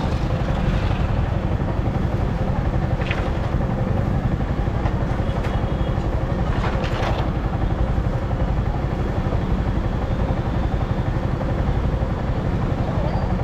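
Motorcycle running steadily on the move, with wind rumbling on the microphone.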